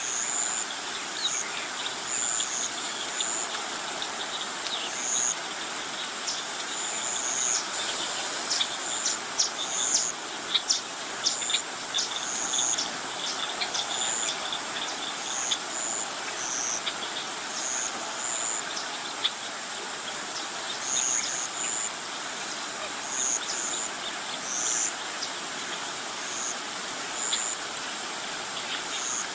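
Outdoor bird and insect chorus: many short, high chirps repeating irregularly over a steady high hiss, with a busier run of quick sharp ticks about a third of the way in.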